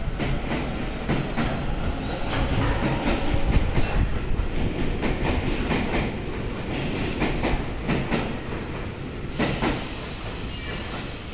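Seibu 101-series electric train, yellow set 263F towing red set 253F, rolling past under a station roof. Its wheels give a steady rumble with irregular clacks and clunks over the rail joints.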